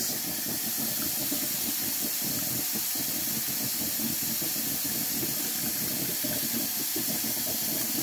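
Kitchen faucet running a steady stream of water into a stainless-steel sink, splashing unevenly.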